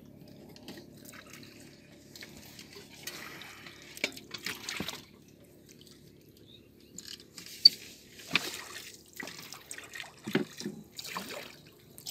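Water sloshing and dripping as someone wades and works with their hands in a river, in irregular splashes, with one sharp click about two-thirds of the way through.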